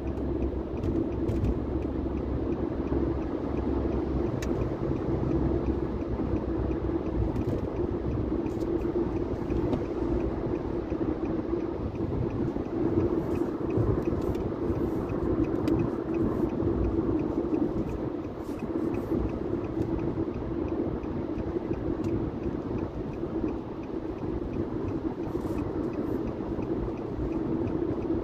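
Steady road and engine noise of a car cruising on a highway, heard from inside the cabin, with a low rumble underneath.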